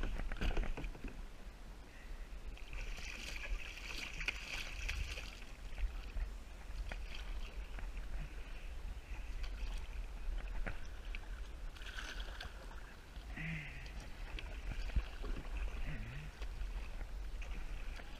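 Kayak paddle strokes: the blades dipping and pulling through pond water, with splashing and drips coming off the paddle in uneven patches. A steady low rumble lies underneath.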